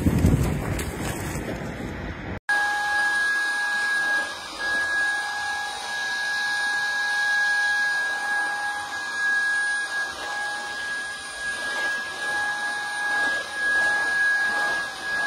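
A cordless stick vacuum cleaner running, a steady high-pitched motor whine over airflow hiss, cutting in abruptly about two and a half seconds in after a stretch of low noise.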